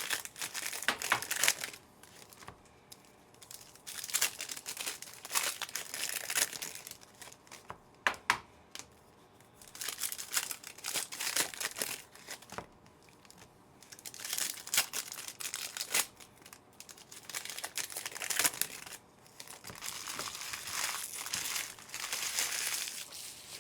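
Foil trading-card pack wrappers crinkling and being torn open by hand, in repeated bursts a few seconds long with short pauses between them.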